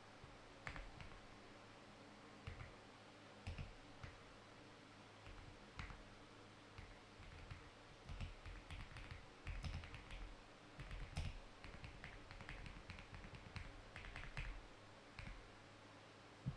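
Faint clicks and taps of typing on a computer keyboard, scattered at first and coming thick and fast in the second half.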